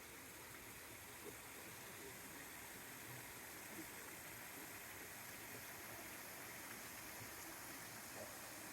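Faint, steady rush of falling water from a waterfall.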